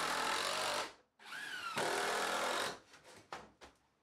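Cordless driver driving screws into a wood block: two short runs of the motor, the second winding up in pitch as it starts. A few sharp clicks follow near the end.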